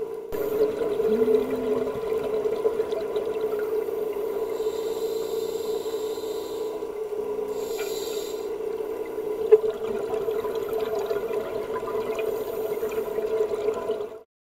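Muffled underwater sound recorded through a dive camera's waterproof housing: a steady hum over a wash of water noise, cutting off suddenly just before the end.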